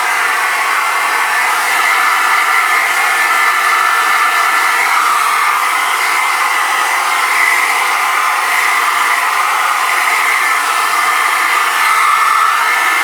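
Steady, unbroken blowing and whirring noise from a small motor-driven blower, with a strong hissy band in the upper-middle range and almost no low end.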